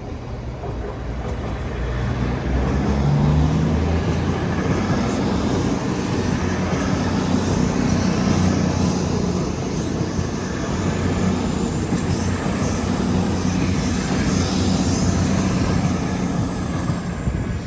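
A train passing close by, building up about two seconds in, running loud and steady, then dropping away sharply at the end.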